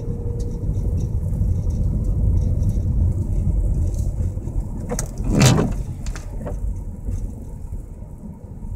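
Car traffic on an iced road: a low rumble of vehicles going by, swelling in the first few seconds, with a short louder rush about five and a half seconds in.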